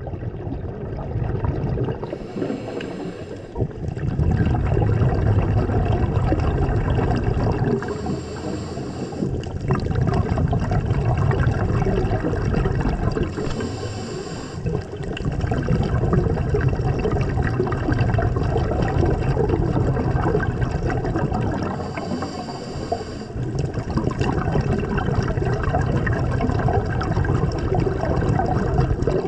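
Scuba regulator breathing heard underwater: long bubbling exhalations of several seconds, each broken by a short hissing inhalation, four breaths in all, about every six to eight seconds.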